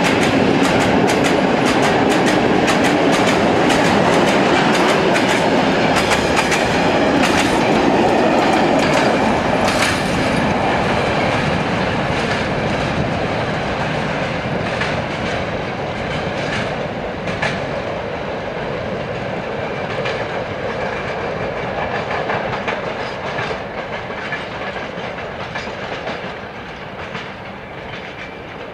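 A freight train of empty wagons rolls past, its wheels clattering over the rail joints. After about ten seconds the clatter thins and the train fades as it draws away.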